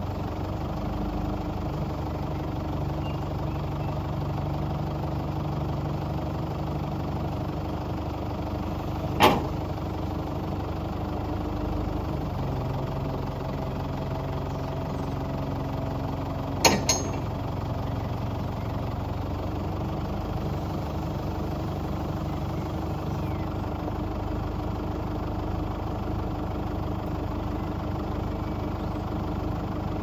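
New Holland NH95 backhoe loader's diesel engine running steadily near idle while the front loader bucket is worked hydraulically, the engine note shifting several times as the hydraulics take load. Two sharp clunks stand out, one about nine seconds in and one about seventeen seconds in.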